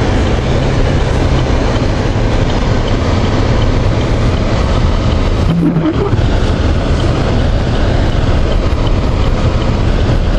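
Steady engine and road noise heard from inside a moving car, with a heavy low rumble; a short hum breaks through about halfway.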